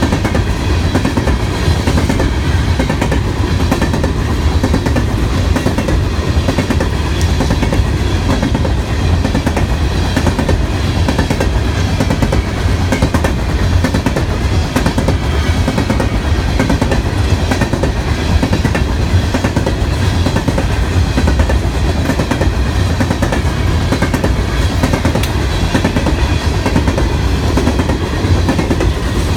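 Freight train of loaded coal cars rolling past close by: a loud, steady rumble of steel wheels on the rails that stays even throughout.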